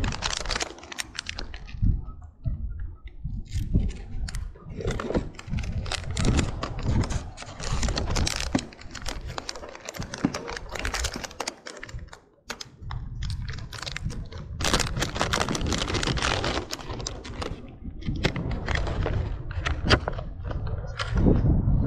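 Hands handling fishing tackle and a plastic soft-bait package close to the microphone: irregular clicks, taps and crinkling.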